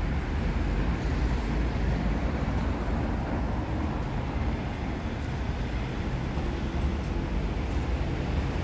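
Steady city street noise, mostly road traffic, with a constant low rumble.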